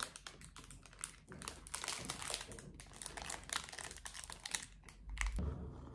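Rapid crinkling and rustling, as of something being handled by hand, with a low thud about five seconds in.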